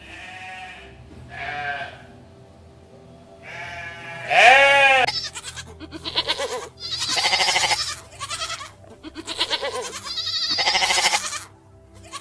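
Goats bleating: a series of separate calls, each lasting up to a second or so. The loudest, about four and a half seconds in, rises and falls in pitch, and several later calls are wavering and rough.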